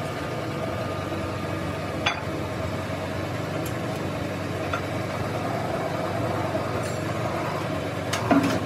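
Steady hum of a workshop machine motor, with one sharp metallic click about two seconds in and a few clinks of steel parts near the end.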